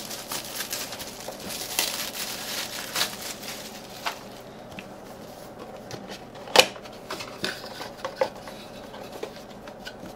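Clear plastic shrink-wrap crinkling and crackling as it is pulled off a cardboard retail box, followed by quieter handling of the box, with one sharp click about six and a half seconds in.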